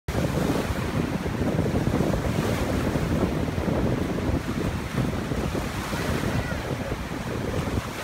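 Small Black Sea waves breaking and washing over the shallows in a steady, rolling surf, with wind buffeting the microphone and adding a low rumble.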